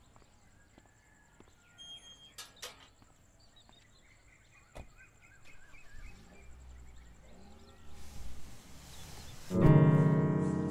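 Faint background with a few small clicks, then near the end a loud, low sustained musical chord comes in sharply and slowly fades as the score starts.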